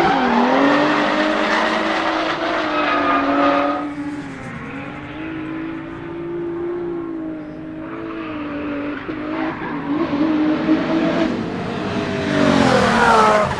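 Nissan 200SX S13 drift car with a twin-turbo VR38DETT V6 (the R35 GT-R engine) revving high and held fairly steady through a drift, its tyres squealing. The engine note dips about four seconds in and then builds again. Near the end the car passes close and is loudest, its pitch falling as it goes by.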